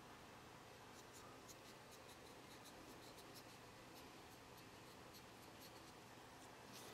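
Faint, irregular scratching of fine 1000-grit sandpaper rubbed over a plastic model part to smooth away a gate mark.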